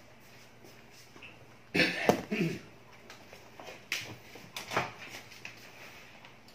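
Scattered rustles and knocks from a wet Shih Tzu puppy being handled and combed on a towel, with a short vocal sound about two seconds in.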